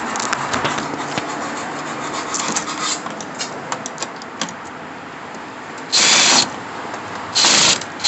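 Cordless drill driving at a door-lock screw in two short loud bursts near the end, after a few seconds of tool and hardware handling clatter. The screw is suspected to be stripped and is not backing out.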